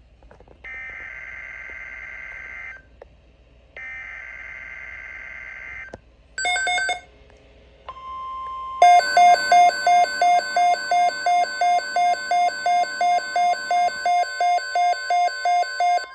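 Emergency Alert System signalling. Two roughly two-second bursts of the warbling digital header tones come first, then a short loud beep. A steady weather-radio alert tone starts about eight seconds in, and soon a loud electronic alarm beep joins it, pulsing about three times a second until near the end.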